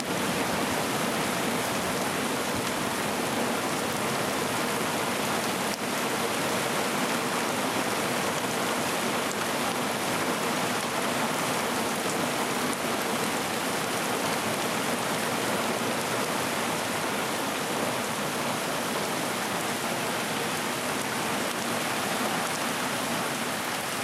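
Steady rain falling, an even hiss of drops that holds the same level throughout.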